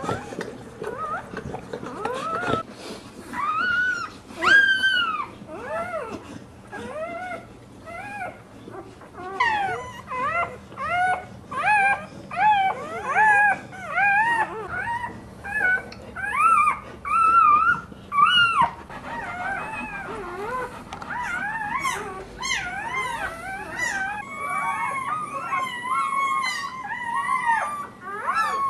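Newborn puppies crying and squealing: a continuous run of short, high-pitched cries that rise and fall, several voices overlapping at times.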